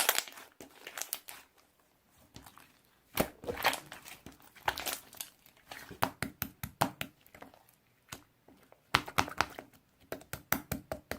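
Plastic crinkling and sticky crackling as a bubbly 'cola ball' squishy is squeezed and handled, in irregular bursts with a quick run of crackles near the end.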